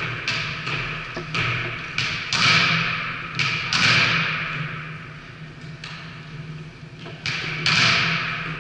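Volleyballs being hit: about ten sharp thumps at uneven intervals, each ringing on in the echo of a large sports hall.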